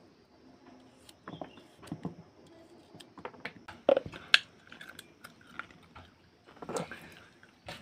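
Irregular crisp crunches and knocks of food being worked by hand to make radish pickle, with two sharp knocks about four seconds in and a longer crunch near the end.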